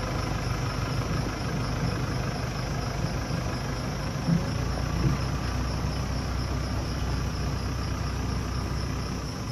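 Compact tractor engine running steadily while it moves an empty boat trailer, with a couple of brief knocks about four and five seconds in.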